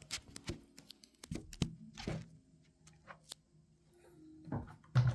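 Scattered light clicks and taps of hard plastic as a Nutribullet Pro blender jug is handled and opened, its cutting head being unscrewed from the jug.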